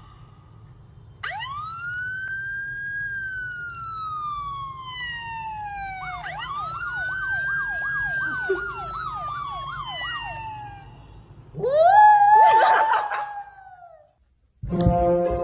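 A siren wails up and slowly down, then rises again and breaks into a fast warble of about three cycles a second before stopping. Just after, a small dog howls along loudly for about two seconds, the loudest sound here.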